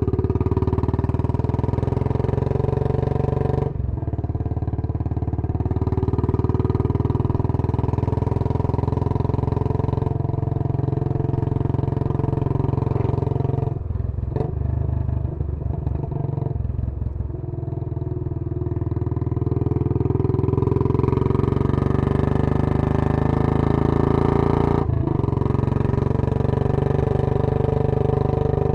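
Royal Enfield Bullet 500's single-cylinder four-stroke engine running through a Punjab long bottle exhaust while the bike is ridden, a steady thumping note. The note breaks briefly about four seconds in and again near the end, and in the middle it drops away and turns irregular for about three seconds before picking up again.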